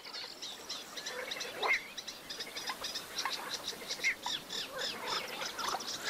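Reed-marsh ambience of birds and frogs calling: a dense run of short high chirps with scattered lower, rising call notes.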